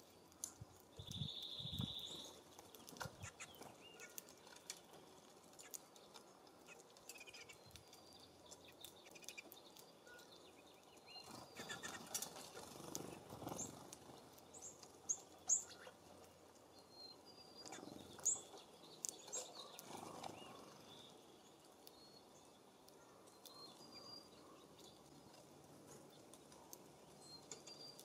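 Faint, scattered short high chirps of small songbirds at a backyard feeder, with one brief held note about a second in. Light taps and wing flutters of birds landing and pecking at the feeders run through it.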